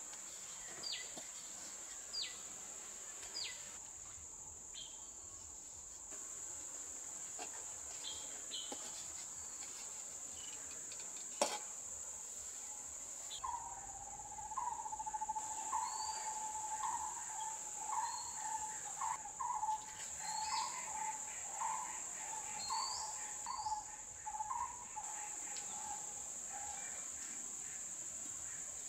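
Steady high-pitched insect chirring, with birds calling over it: short falling whistles about once a second in the first few seconds, then a call repeated about once a second through the second half. A single sharp click about halfway through is the loudest moment.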